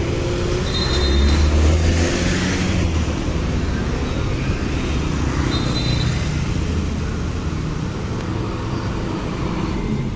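Diesel engine of a front-engined Mercedes-Benz OF-1623 bus running as the bus pulls out and moves off along the road, the low rumble loudest about one to three seconds in, amid passing road traffic.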